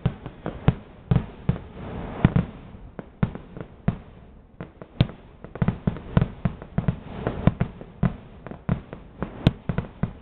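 Fireworks display: aerial shells bursting in a fast, irregular string of bangs, often two or three a second.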